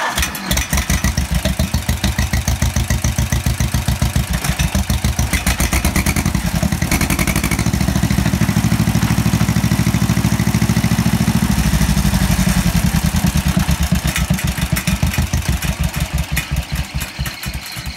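John Deere 430 two-cylinder tractor engine running just after starting on a newly installed electronic ignition kit, with distinct, countable firing beats. It picks up speed in the middle and slows again near the end.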